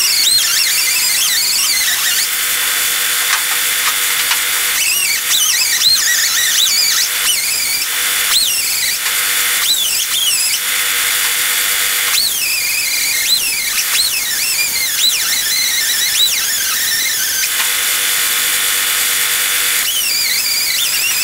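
Handheld power abrasive tool running on the 1963 Chevy C10 cab's sheet metal and primer: a steady high hiss, broken again and again by wavering, high-pitched squeals.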